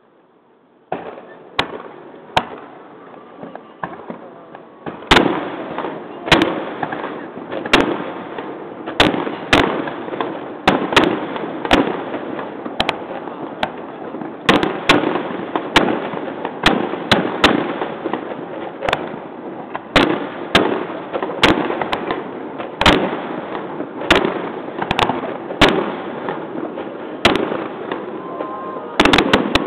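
Aerial firework shells bursting in a continuous barrage: the sound starts suddenly about a second in, then turns into a dense string of sharp bangs, one or two a second, with rumbling between them.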